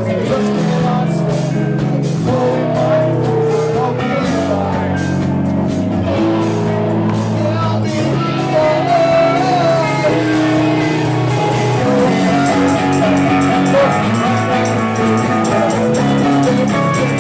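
Live rock band playing loudly: guitars and bass holding sustained chords over a drum kit, with the cymbal strokes turning into a faster, even pattern about twelve seconds in.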